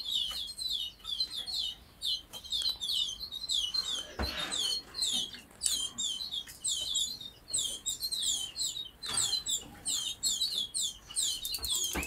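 A shedful of canaries and goldfinch mules chirping together: a dense, constant run of short high chirps, each a quick downward sweep, with a fast trill near the end. A soft knock sounds about four seconds in and again about nine seconds in.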